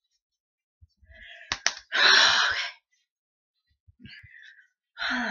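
Two quick small clicks, then a loud, breathy exhale like a sigh lasting under a second; another shorter breath comes near the end.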